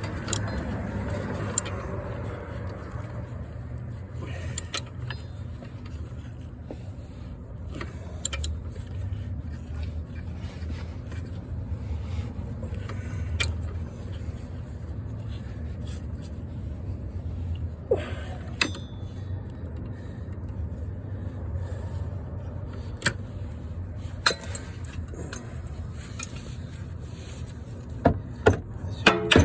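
Scattered sharp metallic clicks and clinks of hand tools on the starter's mounting bolt, with a loud cluster of clinks near the end, over a steady low background rumble.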